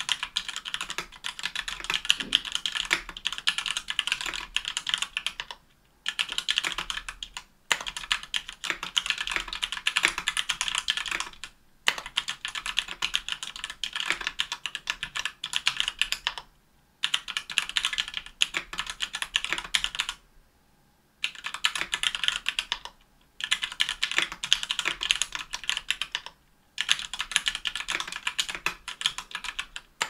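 Typing on a KBDfans Tofu60 aluminium-case keyboard with stock Everglide Sky Blue linear switches, an aluminium plate and GMK keycaps. Dense runs of key clacks are broken by brief pauses every few seconds.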